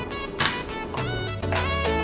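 Background music: an instrumental track with held melody notes, a bass line coming in about a second in, and one sharp knock about half a second in.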